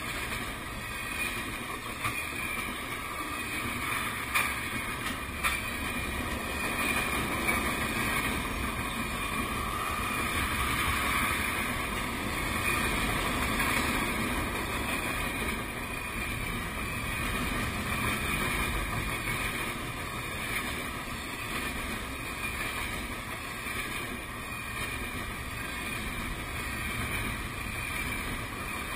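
Steady running noise of a vehicle in motion, a continuous rumble and hiss that swells and eases slowly, with a few faint clicks about four to five seconds in.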